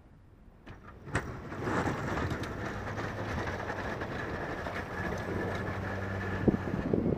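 Pickup truck engine working as its stainless-steel V-plow pushes snow, the engine and the scraping of the blade coming in about a second in and building steadily, with a thin steady whine over them.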